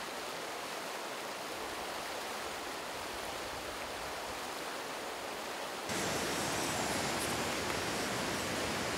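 Steady rush of a rocky mountain river. About six seconds in it gives way to a louder, fuller steady hiss from a gas camping stove burner heating a copper kettle of water that is coming to the boil.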